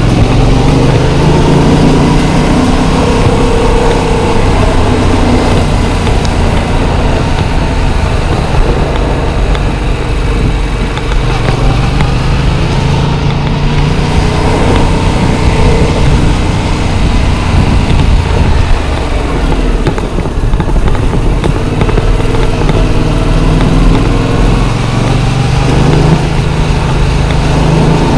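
Yamaha MT-07's parallel-twin engine running at low road speed, its pitch rising and falling gently as the throttle is worked. Heavy wind noise on the microphone underneath.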